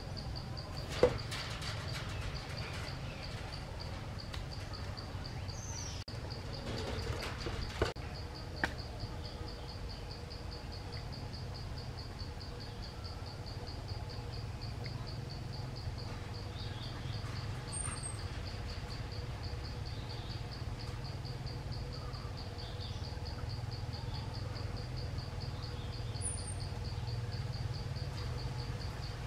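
An insect trill, a rapid even pulsing at one high pitch, keeps on steadily over a low rumble. A few sharp clicks come in the first nine seconds, the loudest about a second in, and two brief high bird chirps come later.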